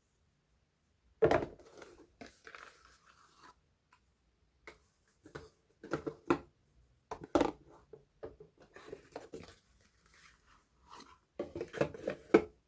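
Soap packages being handled and unwrapped by hand: short crinkling, crackling and tapping sounds in scattered bursts, the loudest about a second in and a quick run of them near the end.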